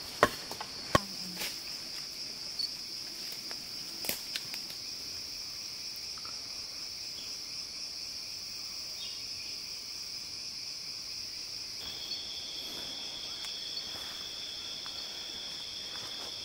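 Rainforest insect chorus: a steady high-pitched drone, joined about twelve seconds in by a second, slightly lower steady drone. A few sharp clicks sound in the first few seconds.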